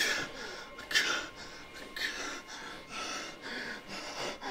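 A man breathing hard through an open mouth, panicked, ragged breaths in and out at about one a second.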